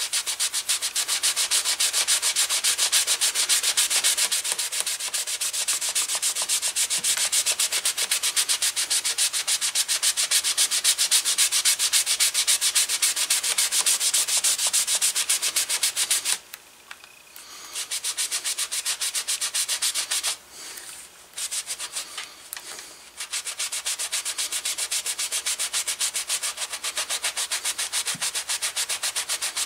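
A green pad rubbed rapidly back and forth over a dyed leather holster, buffing off leather conditioner: a steady fast scrubbing that breaks off briefly about halfway through and again in a few short gaps a few seconds later.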